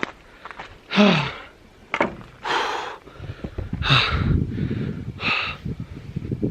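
A man breathing hard, with loud exhales every second and a half or so, one of them a voiced sigh about a second in. A low rumble comes in about halfway.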